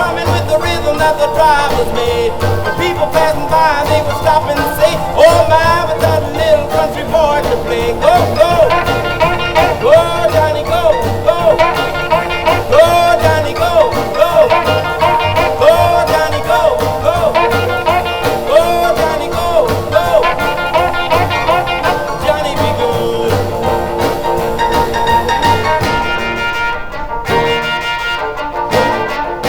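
Upbeat music with a steady beat and a melody of bending, wavering notes. The sound thins out near the end.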